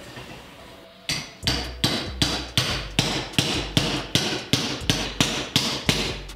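Hammer tapping a brass insert into the end of an aluminum pipe: a steady run of about fifteen sharp blows, roughly three a second, starting about a second in.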